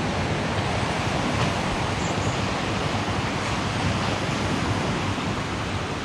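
Steady, even wash of ocean surf and wind.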